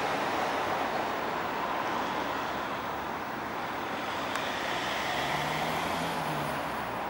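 Steady outdoor rushing noise, with a faint low hum that swells and fades about five seconds in.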